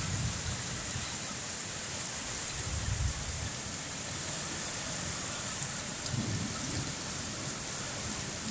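Heavy rain falling steadily on the ground and trees, an even hiss, with a few low rumbles swelling and fading.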